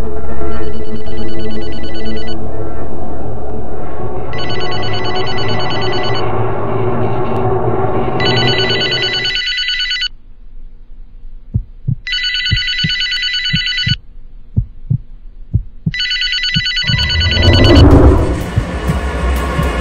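A telephone ringing unanswered, five rings of about two seconds each with two-second pauses, over low sustained film music that drops out about halfway. In the quieter second half, low thuds come about twice a second between the rings, and the music swells again near the end.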